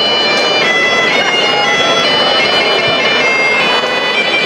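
A bagpipe playing a tune, its notes changing quickly one after another, over the chatter of a crowd.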